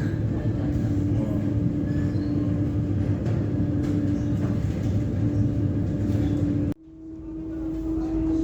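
Steady low engine drone with a constant hum. It cuts out suddenly near the end and fades back in.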